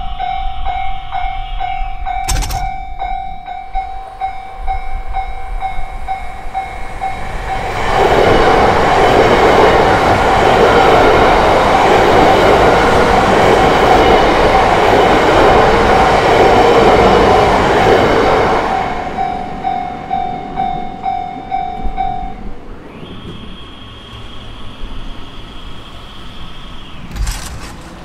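A Japanese level-crossing warning bell rings steadily while a Yamagata Shinkansen train passes over the crossing, loudest for about ten seconds in the middle. The bell stops a few seconds after the train has gone, and music starts in the last second.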